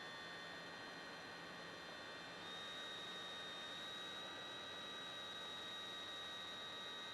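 Faint steady hiss with a thin high-pitched electric motor whine of several tones. The whine steps up slightly and grows a little louder about two and a half seconds in.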